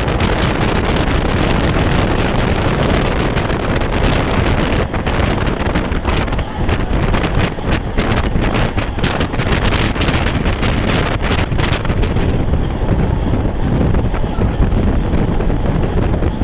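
Wind rushing and buffeting over the microphone on a moving passenger train, over the steady rumble of the train running. Through the middle there is a quick series of sharp knocks or rattles. Near the end the rush turns duller as the hiss fades.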